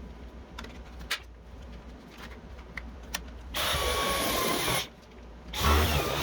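Dyson V11 cordless stick vacuum: a few handling clicks, then the motor runs for about a second with a thin high whine, cuts off, and starts up again near the end.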